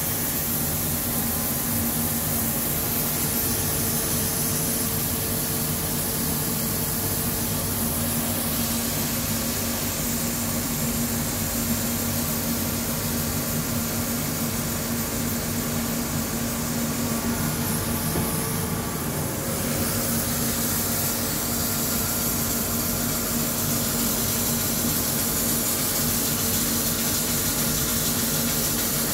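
HüllerHille NBH 170 machining center running a rough boring cut with a roughing head and carbide insert, about 3 mm per side at 200 rpm. A steady machine hum runs under the hiss of flood coolant spraying onto the bore.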